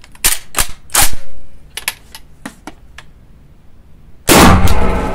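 A few loud metallic clacks from the action of an AKSA T12 12-gauge shotgun as it is handled and readied, then a single 12-gauge shot about four seconds in, fired in semi-automatic mode. The shot rings on with a long decay in the small range room.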